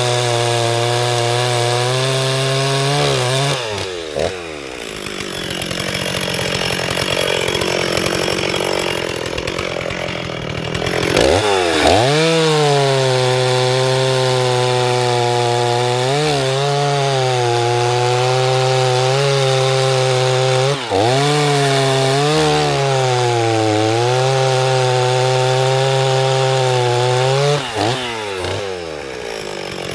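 Two-stroke chainsaw cutting wood: the engine runs at high revs, its pitch sags and turns rough for several seconds as it works through a cut, then holds high with a few short dips.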